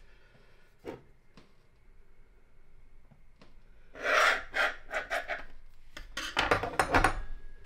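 A metal knife blade scraping and pressing through thin rolled dough onto a wooden board: a run of short, rasping strokes about four seconds in, and a second run about six seconds in.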